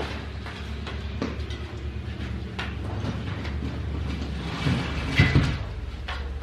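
A steady low mechanical hum with scattered knocks and clunks, and a louder clatter about five seconds in.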